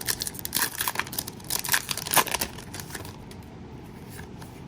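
Foil booster-pack wrapper crinkling and tearing open, a rapid run of sharp crackles in the first three seconds, the loudest about two seconds in, then dying down.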